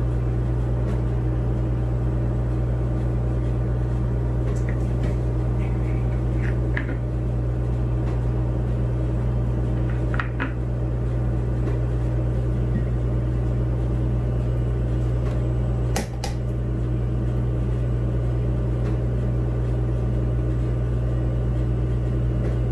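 A steady low hum with several even tones, like a running appliance or electrical hum, unchanged throughout. A few faint clicks and taps from a plastic measuring cup against a squeeze bottle sound over it.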